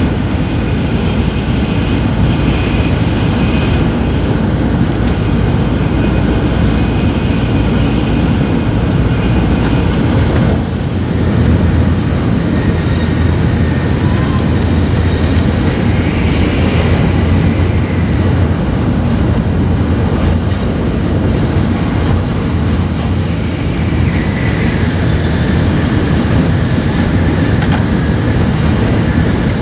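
Tokaido Shinkansen train running at high speed, heard from inside the passenger car: a steady, loud running noise.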